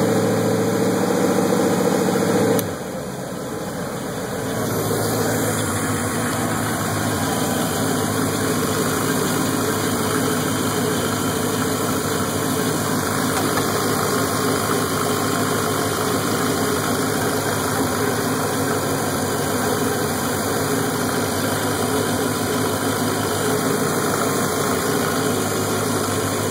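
Ford 351 Windsor V8 marine engine with throttle-body fuel injection running steadily. About two and a half seconds in, its even tone breaks off and the level dips briefly, then it settles into a rougher, more mechanical running sound.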